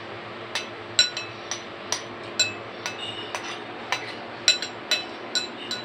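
Metal spoon clinking and scraping against a bowl while eating, a quick irregular run of sharp clinks, each with a brief ring.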